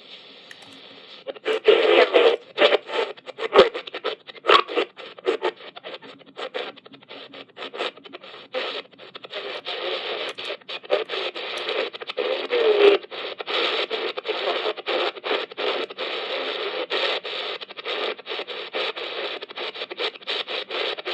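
Shortwave static from the Raynic CR-1009 emergency radio's speaker while the dial is tuned across the band: a hiss full of crackles and dropouts, with a short wavering whistle about 13 seconds in.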